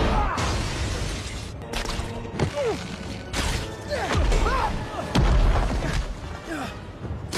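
Film fight sound effects: a string of heavy impacts and deep booms with crashing debris and short swooshes, the heaviest hits about four and five seconds in, over background music.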